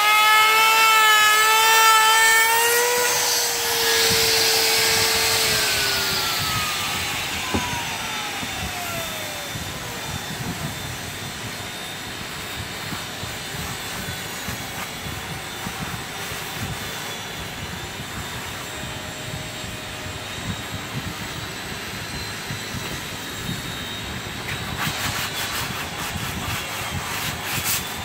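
A DeWalt compact router runs with a high whine as it trims the edge of a plywood boat frame; about three seconds in it is switched off and spins down, its whine falling in pitch and fading over several seconds. Near the end come quick rubbing strokes of sandpaper on the wood.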